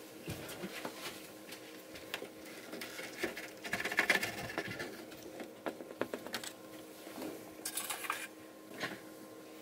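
Wet water putty being worked and pressed into holes around plastic drain pipes: irregular small scrapes, squishes and light taps of a tool on the putty and pipes, busiest about four seconds in and again near eight seconds.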